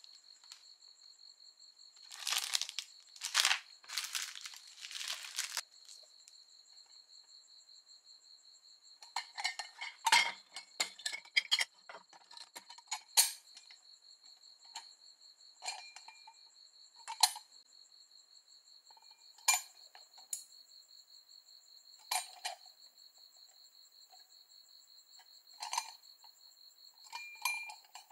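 Plastic packaging crinkling as it is handled, then a series of light metallic clicks and clinks as the gold-coloured bottom cover of a Classic Lantern Mini candle lantern is worked off and handled.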